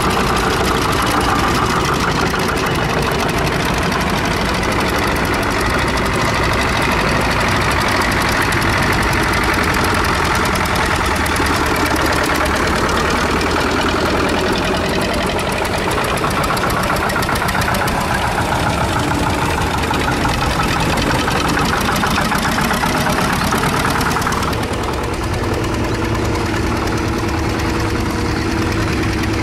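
Vintage Zetor diesel tractors running with a clattering knock as they drive past one after another. Near the end it gives way to a steadier idle.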